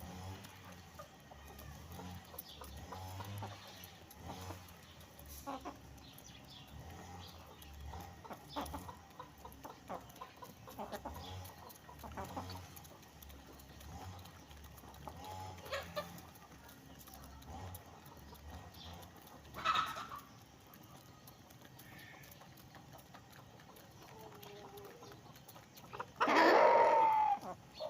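Chickens clucking and pecking at feed, with many small clicks and short calls. Near the end a rooster crows once, long and loud.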